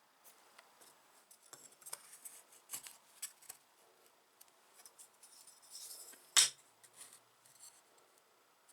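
Scattered light clicks and taps of hand-work at a bench, with one sharp, much louder knock about six and a half seconds in.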